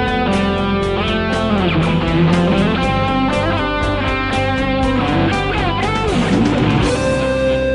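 Fender Stratocaster electric guitar played through a Line 6 POD HD500X, taking a fast lead solo of quick picked notes with string bends and vibrato over a backing track with drums. Near the end the drums drop out and a held note is left ringing.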